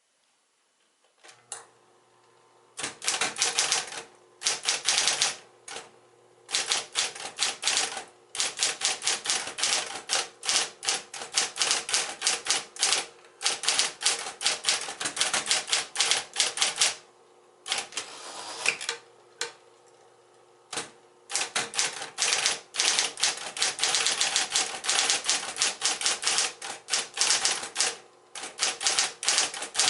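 Smith-Corona Electra 110 electric typewriter: its motor switches on and hums steadily about a second in, then keys strike in rapid runs of clicks broken by short pauses.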